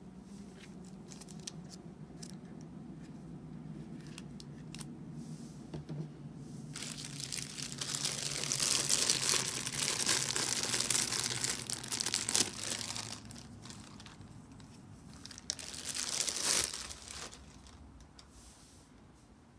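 Packaging of a boxed prize figure being crinkled and torn open: scattered crinkles and clicks at first, then a long, loud stretch of crinkling and tearing from about seven to thirteen seconds in, and another short burst near the end.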